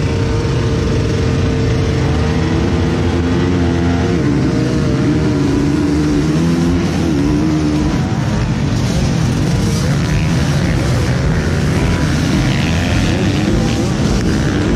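Motocross bikes' engines revving at the start of a race. Held at a steady pitch for the first few seconds, then wavering, then a rougher mix of many engines at high revs as the pack accelerates away.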